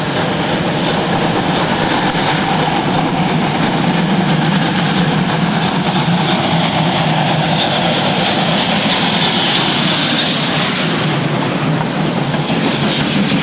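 Steam locomotive working hard as it approaches and passes close by: a steady stream of rapid exhaust beats with steam hissing. The hiss grows louder about eight to ten seconds in as the engine draws alongside in a cloud of steam.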